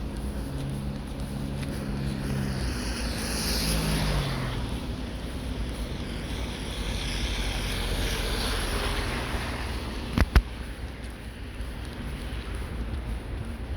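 A vehicle passing in the wind, its engine hum dipping in pitch as it goes by about four seconds in, then a second swell of passing noise. There is a sharp knock about ten seconds in.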